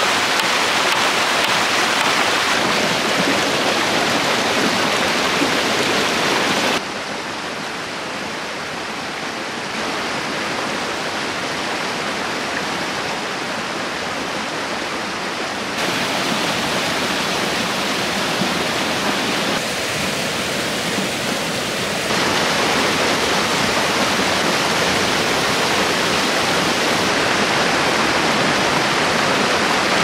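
River rapids and a small waterfall rushing over boulders: a steady rush of water that steps up or down in loudness several times, first about seven seconds in.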